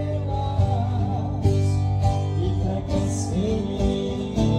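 Live acoustic guitar music: strummed guitars with a man singing a wavering melody over steady chords.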